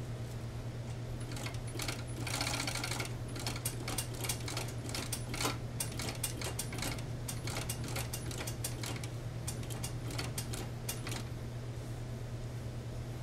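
Fur sewing machine stitching in a series of short runs, a rapid needle clatter over a steady motor hum. It starts about a second and a half in and stops about eleven seconds in.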